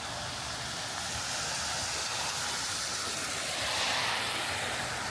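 Steady hiss of heavy rain on wet city streets, with a vehicle's tyres passing on the wet road, swelling about four seconds in and then easing.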